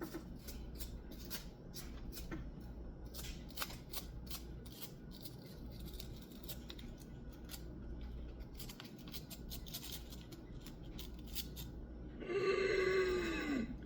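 Small scattered clicks and ticks of wires and a soldering iron being handled during soldering, over a low steady hum. Near the end, a person lets out a drawn-out groan that falls in pitch.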